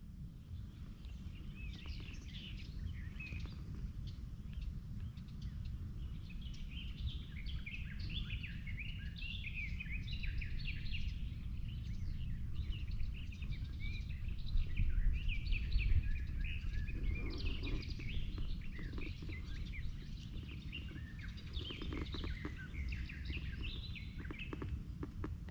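Small birds chirping and singing in many short calls over a steady low rumble, with a patter of faint clicks near the end.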